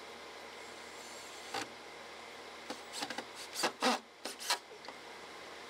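Handwork on a wooden fence gate: a single click, then about a second later a quick cluster of short scraping and rubbing noises, over a faint steady hiss.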